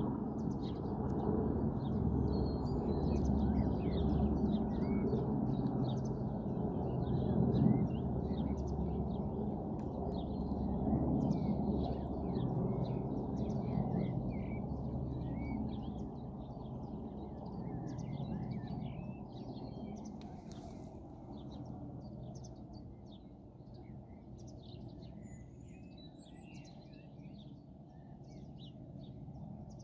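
Distant UH-60 Black Hawk military helicopters, a low steady rotor drone that fades as they fly away, with small birds chirping throughout.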